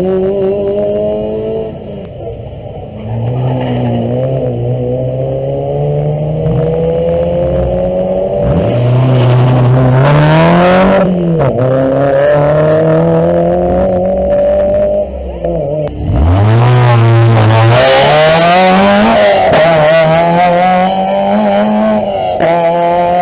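Rally car engine at full throttle, its pitch climbing through each gear and dropping sharply at every shift. Twice, near the middle and about three-quarters of the way through, a loud rushing noise swells over it as the car passes close.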